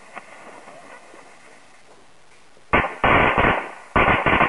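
A lit combo of smoke balls and firecrackers: a faint hiss from the burning smoke balls, then, under three seconds in, a rapid run of loud firecracker bangs, one bang followed by two quick clusters.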